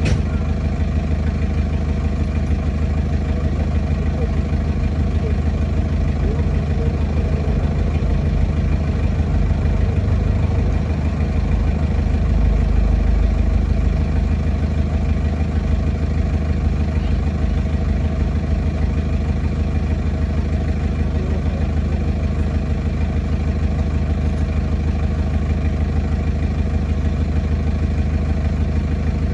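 Heavy diesel engine idling steadily, its low note swelling slightly about ten to fourteen seconds in.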